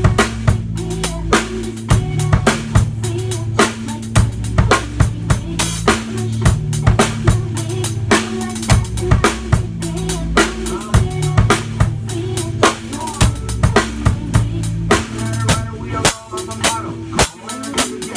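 Acoustic drum kit played in a steady groove, with kick drum, snare and rimshots and Zildjian cymbals, along to a recorded backing track whose bass line sustains low notes under the hits. The bass line drops out briefly near the end.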